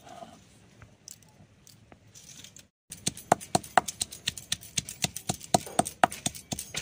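Banana flower being crushed by hand on a grinding stone: a quick, even run of sharp stone-on-stone knocks, about four a second, starting about three seconds in.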